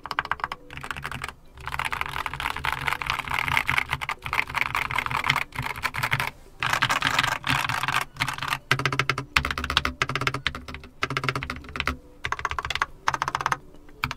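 Mechanical keyboard being typed on quickly and continuously as a sound demo, with a few brief pauses.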